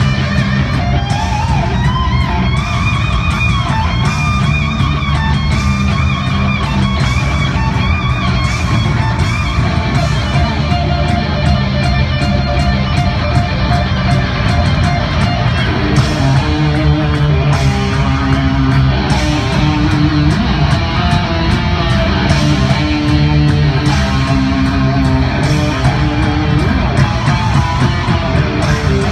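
Heavy-metal lead solo on an SG-style electric guitar played through a concert PA. The first half has high, sustained, bending notes; from about halfway it moves into lower repeated riffing.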